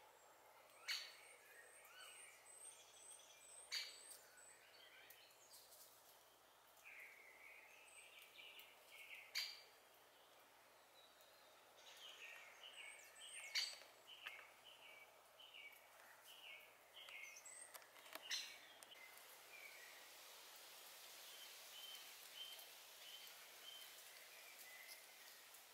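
Faint woodland birdsong: songbirds singing short phrases of repeated notes. About five sharp clicks are scattered through it and are the loudest sounds.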